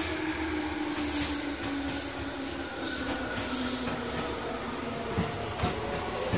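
Tobu 20050-series electric commuter train pulling away from the platform and gathering speed, its motors whining in gliding tones over the rumble of the cars. Two knocks come near the end as the wheels pass over the track.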